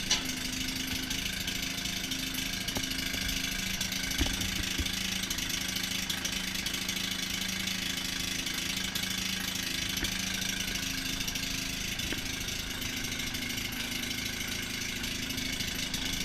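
Maytag 72 two-stroke gasoline engine on a washing machine running at a steady idle, with a few small knocks about four seconds in.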